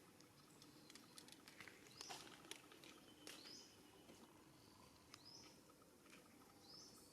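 A bird's short, high chirp that rises then levels off, repeated about three times at intervals of roughly a second and a half to two seconds, over faint scattered clicks and rustling.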